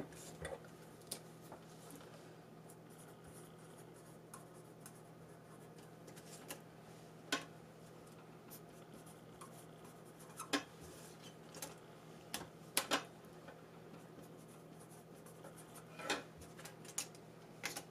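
Herb cuttings being trimmed and handled: a few scattered sharp snips and small clicks with light rustling and scratching, over a faint steady hum.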